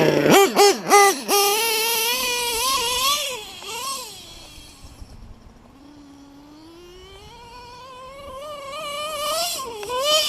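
LRP .32 nitro engine with a Novarossi race carburettor, in a Tekno NT48.3 RC car, revving hard in a few quick blips, then a high whine that drops in pitch and fades as the car runs off, and rises and grows louder again near the end as it comes back. The engine is screaming with the high-speed needle set a bit too lean, as the owner judges it.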